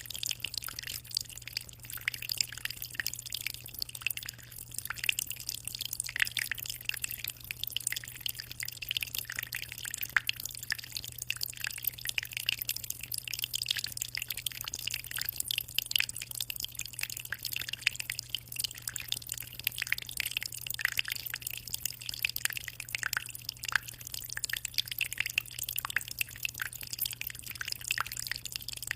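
Aquarium water trickling and splashing, a dense continuous patter of small drips, over a steady low hum.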